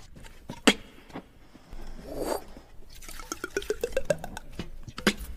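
Mouth-made liquid sound effects: a single pop, a short rush of noise, then a fast run of clicks rising in pitch like a vessel filling, and one more pop near the end.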